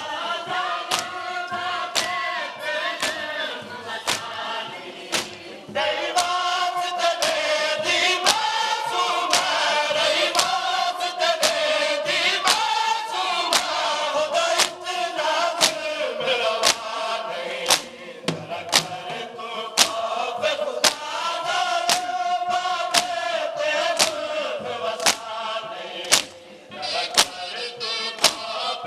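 Men chanting a noha (Shia lament) together, with sharp rhythmic strikes of matam (hand chest-beating) keeping a steady beat about one and a half times a second.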